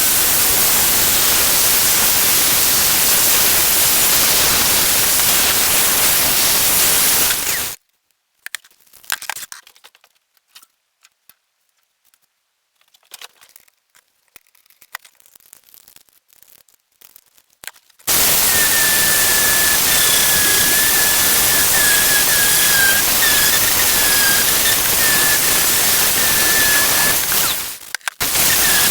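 Loud steady hiss from a power tool stripping rust off old steel pliers. It cuts off abruptly after about eight seconds, leaving near silence with a few faint clicks for about ten seconds. Then the hiss comes back with a wavering high whine over it and drops out briefly near the end.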